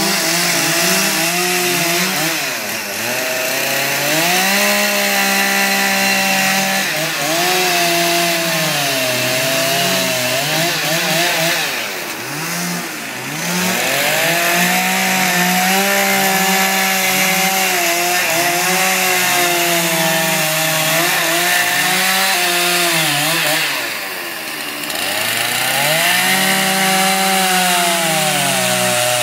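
Chainsaw carving into wood, its engine pitch wavering up and down with the throttle and the load of the cut. It eases off and drops in pitch briefly a few times, about twelve seconds in and again a few seconds before the end, then revs back up.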